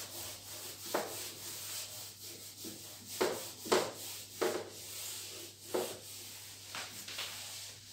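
Handheld whiteboard eraser (duster) wiping marker off a whiteboard: a dozen or so irregular rubbing swipes, roughly one or two a second.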